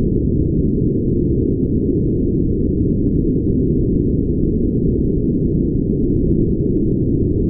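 Brown noise: a steady, deep, muffled rush with all its weight in the low end and no high hiss at all.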